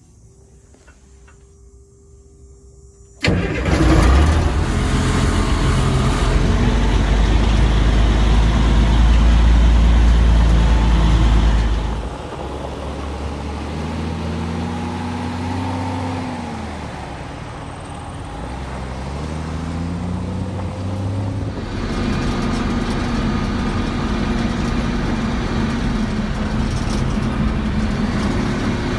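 A 1966 M109A3 deuce-and-a-half's multifuel diesel engine comes in suddenly and loud about three seconds in and runs hard. After about twelve seconds it drops somewhat, its pitch climbs twice as it revs up, and from about twenty-two seconds it runs steady.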